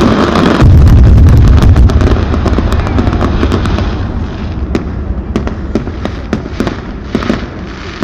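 Fireworks display: a heavy low rumble of bursts, then a long run of sharp crackling pops that slowly fade.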